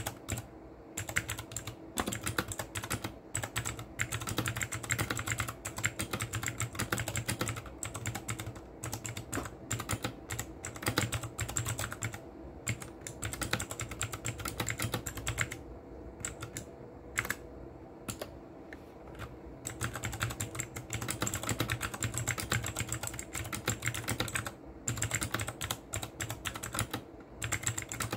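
Typing on a compact backlit mechanical keyboard: quick, irregular runs of key clicks, with a short lull about midway.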